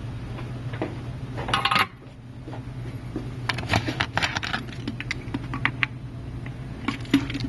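Light clicks and taps of small tools and objects being handled on a repair workbench, scattered and irregular in the second half, over a steady low hum. There is a short rush of noise about a second and a half in.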